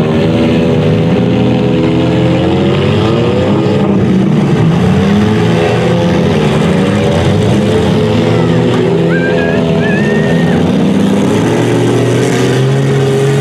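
Several compact demolition-derby car engines running and revving at once, their pitches rising and falling as the cars accelerate and back off. A brief high wavering squeal comes about nine seconds in.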